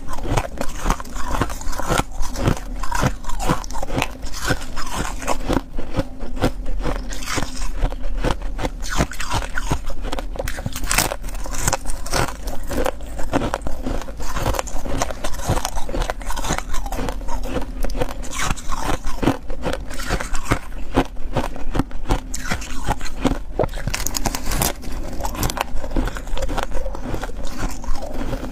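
Powdery blue-tinted crushed ice being bitten and chewed from a glass bowl: a dense, steady run of crisp crunches and crackles.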